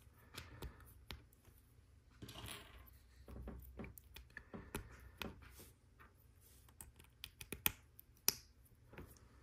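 Small plastic LEGO Technic pieces clicking as black pins are pushed into grey connectors and handled: scattered light clicks, the sharpest two near the end.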